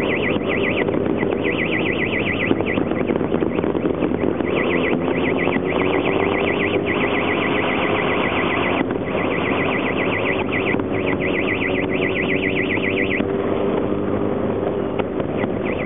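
Electronic alarm warbling rapidly up and down, sounding in long stretches with a few short breaks, over a steady mechanical hum.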